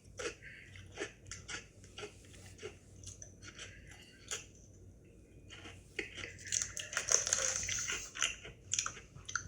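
Close-up chewing of an Oreo sandwich cookie: repeated short crunches and mouth clicks, with a louder, denser stretch of crunching about six seconds in.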